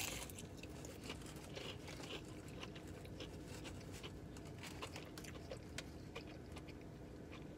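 Close-up chewing of crunchy extra-crispy fried chicken tenders: faint, irregular crackles and crunches, with a louder bite right at the start.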